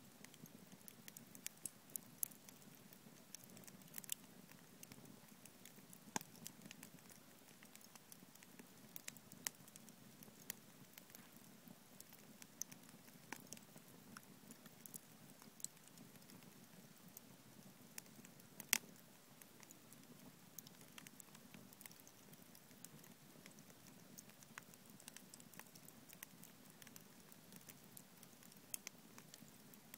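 Wood campfire crackling: irregular sharp pops and snaps from burning logs, with one louder pop a little past halfway.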